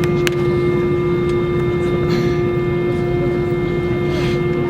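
Airbus A320 jet engines running steadily: a constant whine over a low rumble, with a brief click about a quarter second in.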